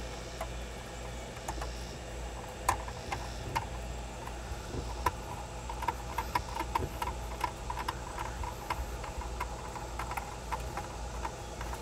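Small self-tapping screw being driven by hand with a screwdriver through a bass-knob bracket into a plastic dash bezel: a run of small, irregular clicks and ticks, starting a couple of seconds in and coming closer together later.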